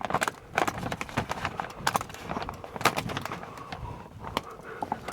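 Irregular knocks, clicks and rustling of things being handled and moved by hand, with no tool running.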